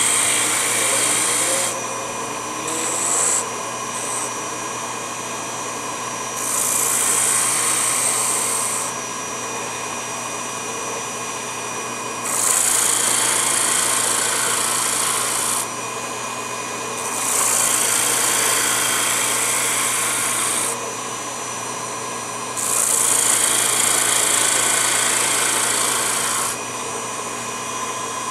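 Wooden blank sanded against the spinning drum of a mini lathe: a rasping hiss that rises in spells of a few seconds each time the wood is pressed in, about five times. Under it the small motor runs with a steady whine.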